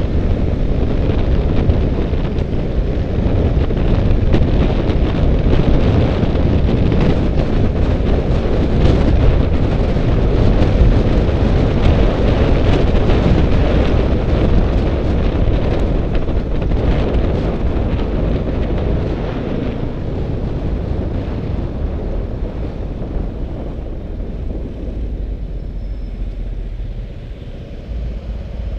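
Wind rumble and buffeting on the microphone of a modern Vespa scooter riding through traffic, with the scooter's engine and road noise underneath. It grows quieter over the last several seconds.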